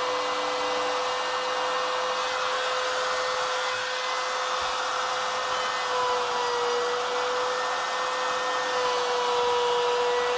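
Laminate trimmer with an offset base running with a steady high-pitched whine as its bit routs wooden pocket-hole plugs flush with the surface. The pitch dips slightly a little past the middle.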